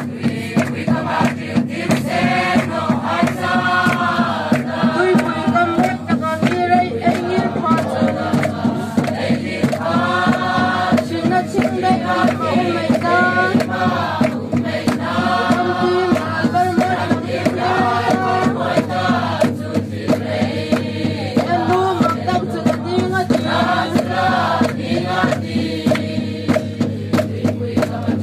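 A congregation singing a hymn together in a group chant, kept in time by a steady beat on large barrel drums (khuang).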